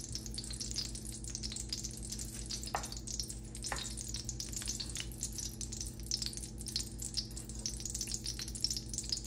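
Desi ghee sizzling softly in a steel wok, with fine, steady crackling around a test piece of gond (edible gum): the ghee is not yet hot enough to puff the gum. A wooden spoon stirs it now and then.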